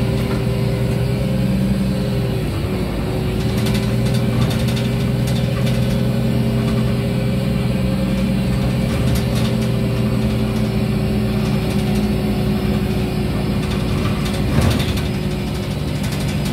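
Mercedes-Benz O345 Conecto city bus under way, heard from inside the passenger cabin: a steady engine drone with a whine over it that dips briefly about two and a half seconds in. A few short rattles cut through, the loudest near the end.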